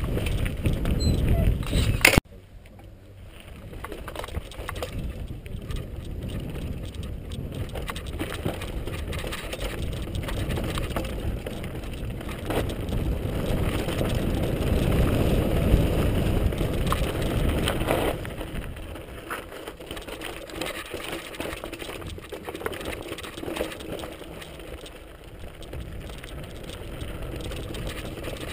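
Mountain bike riding fast over a rough, stony track, heard from a camera on the bike or rider: tyres crunching over gravel and rocks with constant small rattles from the bike, and a rumble of wind on the microphone. The sound drops off sharply about two seconds in, builds to its loudest through the middle, then eases.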